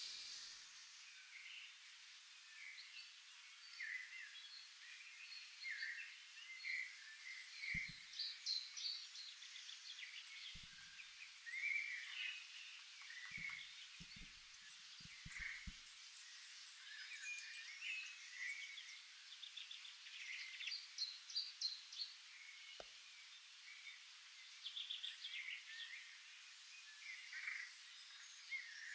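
Faint birdsong: many short chirps and trills from several birds, with a few soft low thuds around the middle.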